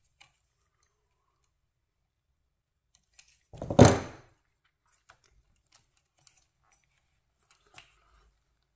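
A single loud thump about four seconds in, with a few light clicks before and after it, like parts or tools being handled and set down.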